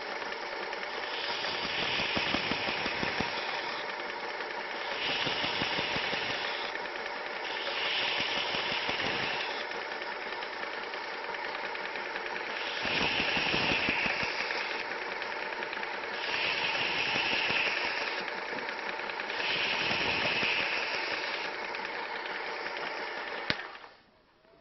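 WorkSharp 3000 sharpener's motor running a medium-grit abrasive belt, with several slow passes of a knife edge across the belt, each pass adding a louder, brighter grinding for a second or two. The motor shuts off with a click about a second before the end.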